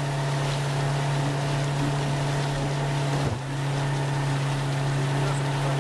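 A boat's engine running at a steady drone, with water and wind noise over it; the drone dips and wavers briefly a little past halfway.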